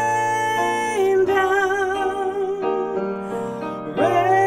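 Solo voice singing a hymn with piano accompaniment: a long held note that takes on vibrato about a second in, with a new, louder phrase starting near the end.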